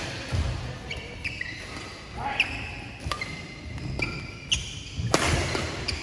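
Badminton rally: sharp racket strikes on the shuttlecock, the loudest about five seconds in, with court shoes briefly squeaking on the court floor between the shots.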